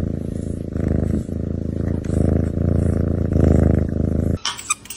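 A kitten purring loudly as a steady low buzz that swells and eases in even cycles with its breathing. It stops abruptly a little after four seconds in.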